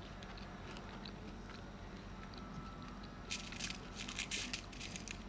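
A person biting and chewing food, with small wet clicks. About three seconds in comes a brief spell of louder, crisp crackly noise.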